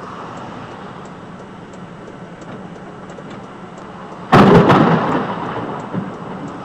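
Thunder from a close lightning strike: a sudden loud crack about four seconds in that rumbles away over the next second or two, heard from inside a parked vehicle over a steady background hiss.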